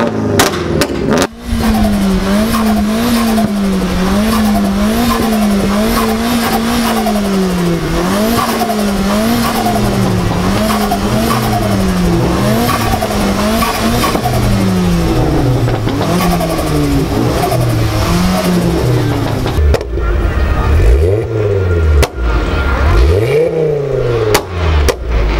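Modified cars' engines and exhausts revving. For most of the stretch an engine's pitch rises and falls evenly about once a second. Then, from about 20 seconds in, sharper rev blips fall away and climb quickly.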